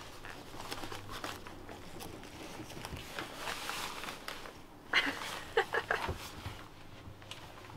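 Rustling and crinkling of a waterproof sailing jacket's fabric being handled, with a short cluster of sharper clicks about five seconds in.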